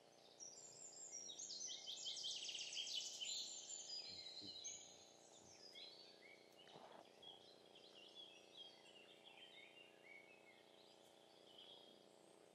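Several wild birds singing, with a loud run of rapid trills and repeated notes in the first few seconds, then scattered chirps and short phrases. A faint steady hum lies underneath.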